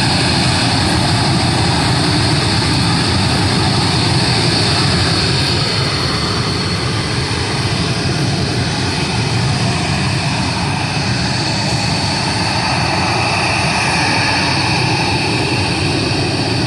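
Blue Angels F/A-18 Super Hornet jet engines running loud and steady during the demonstration jets' takeoff sequence, with a faint whine that drifts slowly in pitch.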